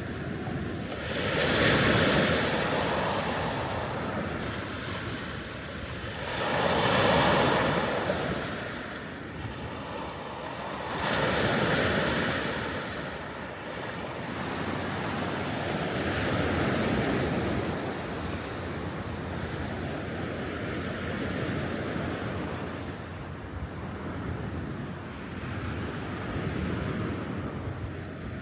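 Lake Michigan waves washing onto the shore, rising and falling in surges about every five seconds.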